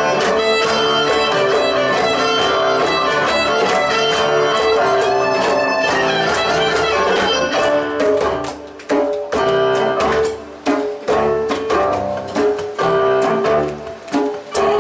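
Live folk band playing an instrumental passage, a fiddle leading over strummed acoustic guitar, hand drum and bowed low strings. About eight seconds in, the full sound breaks into short, separated ensemble hits with brief gaps between them.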